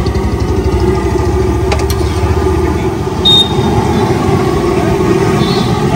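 Hot oil sizzling in a deep-frying kadai as snacks fry, over a steady low rumble of idling road traffic that eases about halfway through. A brief high ping about three seconds in.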